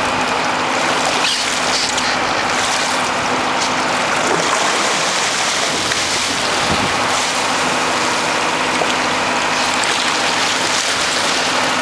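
Boat engine running steadily under a constant rush of wind and water along the hull, with a hooked fish splashing at the surface beside the boat.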